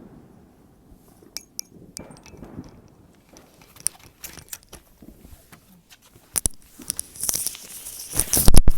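Fireworks crackling with scattered sharp pops, a few louder cracks later on, and a dense run of loud bangs near the end.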